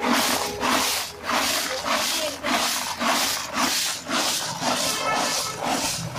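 Fried potato chips tossed by hand in a plastic tub to coat them with spice powder, rustling in repeated surges about three times a second.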